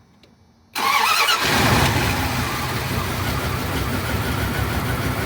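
A Dodge pickup's gas engine starts about a second in and settles into a steady idle. This is the crank-no-start now cured by replacing the burnt, worn distributor cap.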